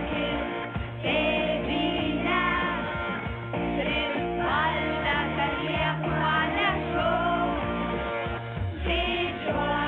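Song performed live by a children's choir with a lead singer, over instrumental accompaniment with a steady bass line.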